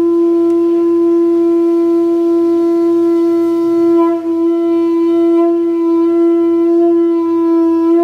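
A conch shell (sangu) blown in one long, steady note with a brief waver about four seconds in. The player buzzes his lips at the mouth hole, like a bee, rather than just blowing air in.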